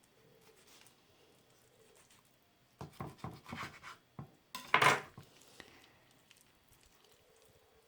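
Kitchen utensils and dishes being handled: a run of knocks and scrapes about three seconds in, then one louder clatter near the middle.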